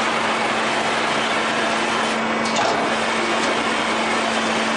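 Steady running noise of a steel-panel roll-forming line with a constant drive-motor hum, as a finished corrugated panel is carried off the line after cut-off; a couple of faint clicks about halfway through.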